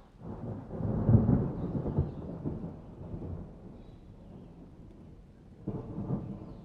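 Thunder rumbling: a low, crackling roll that builds in the first second, peaks, then fades over several seconds, with a second roll starting near the end.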